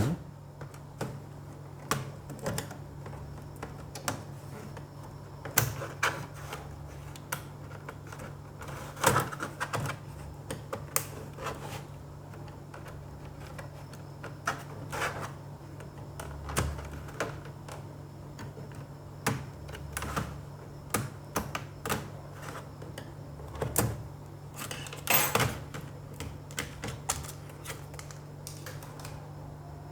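Irregular clicks, taps and light rattles of a Dell laptop being taken apart by hand: the keyboard unclipped at the front and the screws beneath it undone, over a low steady hum.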